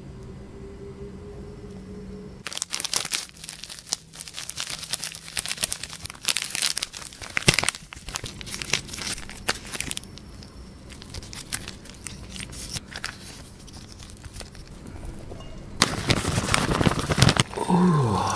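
Plastic ramen sauce and seasoning sachets crinkling and tearing as they are opened and squeezed out over a bowl of cooked noodles, starting about two seconds in. Near the end there is a louder stretch of wet noodles being tossed and mixed with wooden utensils in a glass bowl.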